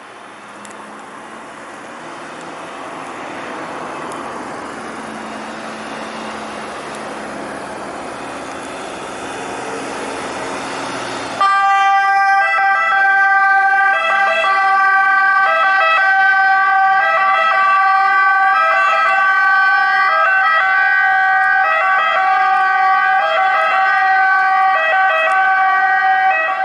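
Ambulance engine and tyres growing steadily louder as the vehicle approaches, then about eleven seconds in its siren switches on suddenly: a loud two-tone siren repeating its alternating notes for the rest of the time.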